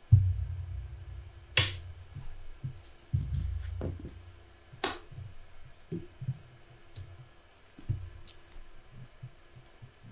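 Trading cards and game tokens handled on a tabletop: a dull thump right at the start and another about three seconds in, with sharp clicks and snaps in between and a few lighter ticks later.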